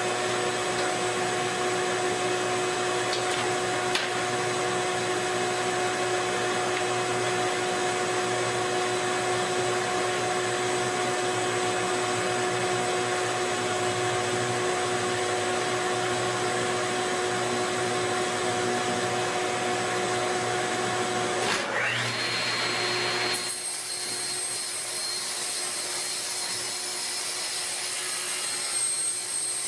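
An electric power tool motor running steadily with a whine. About three-quarters of the way through the sound breaks off with a brief rising glide and gives way to a different, higher steady whine.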